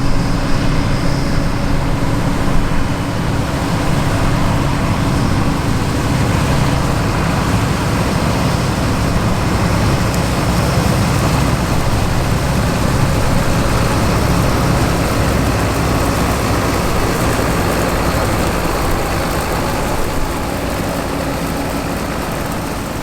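Large diesel farm machinery of a 1990s John Deere wheat harvest running steadily in the field: a continuous engine drone with machine noise, easing off slightly near the end.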